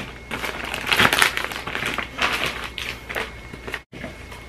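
Plastic courier mailer bag crinkling and rustling in several irregular bursts as a cardboard package is pulled out of it, with a brief dropout near the end.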